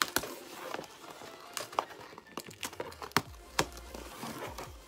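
Corrugated cardboard box being torn open along its perforated tear strip: irregular crackling and ripping with several sharp snaps, the loudest about three seconds in.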